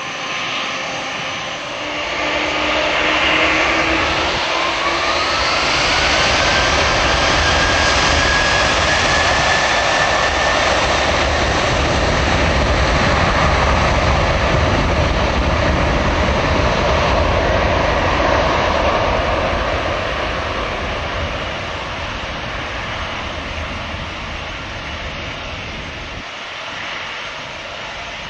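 Airbus A300-600R's two Pratt & Whitney PW4158 turbofans spooling up to takeoff thrust, with a rising whine a few seconds in. A loud steady jet engine noise follows through the takeoff roll and slowly fades as the airliner draws away down the runway.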